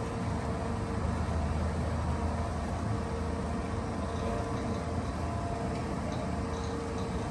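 A motor running steadily: a low drone with a faint constant whine that drops out for a couple of seconds and comes back.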